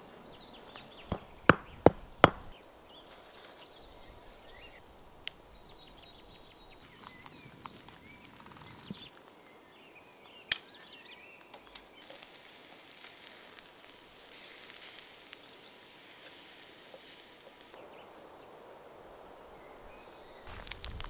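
Birds chirping, with a few loud sharp cracks near the start. About halfway through comes a single sharp knock, then steaks sizzling on a wire grill over wood-fire embers, a steady high hiss that thins out near the end.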